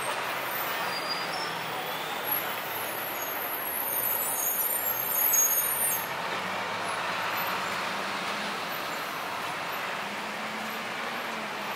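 City street traffic: buses and cars running along the road, a steady mix of engine and tyre noise. A thin, very high squeal sounds from about two and a half to six seconds in, where the traffic is loudest, and a low engine hum is heard near the end.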